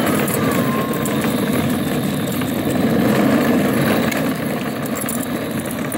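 Plastic wheels of a child's push-along ride-on car rolling over pavement, a steady rumble. A faint falling squeak comes in the first second.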